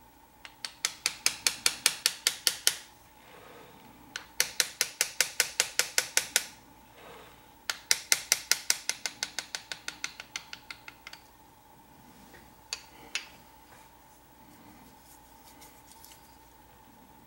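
Small engraving hammer tapping a hand graver to cut scrollwork into a metal plate: sharp metallic taps in quick, even runs of about seven or eight a second. There are three runs of a few seconds each, then two single taps about halfway through.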